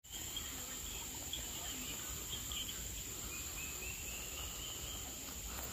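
Tropical forest ambience: insects droning in a steady high-pitched whine, with birds calling faintly in wavering whistles behind it.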